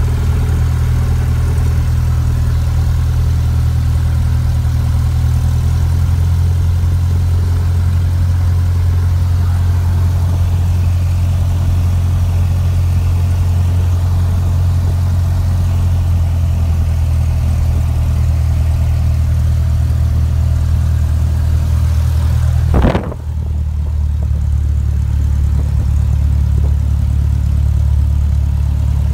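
Cessna 182's piston engine and propeller running at low taxi power, a steady drone heard inside the cabin. About two-thirds of the way through there is one brief thump, and after it the sound is duller.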